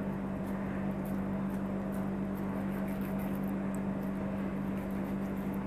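A steady low hum over a hiss of room noise, with faint soft ticks from hands shaping minced kabab meat.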